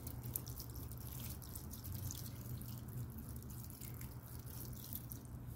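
Water trickling from a plastic watering can onto moist potting soil in a fabric grow bag, with many small drips and splashes over a low steady hum.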